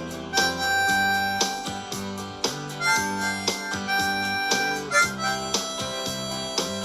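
Blues harp (ten-hole diatonic harmonica) playing a melodic solo of held and changing notes over a rhythmic accompaniment with a steady beat.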